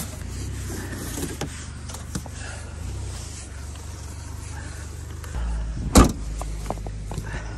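Vehicle engine running with a steady low rumble that grows stronger about five seconds in, followed at once by a single loud thump.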